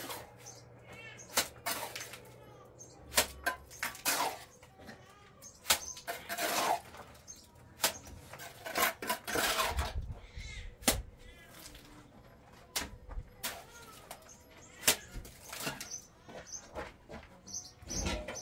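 Irregular sharp knocks and clicks mixed with short scraping noises, from hand work with cement and plastering tools.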